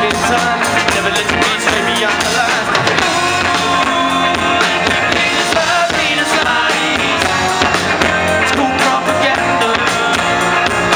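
Live rock band playing, with electric guitars, acoustic guitar, keyboard and drums, loud and continuous.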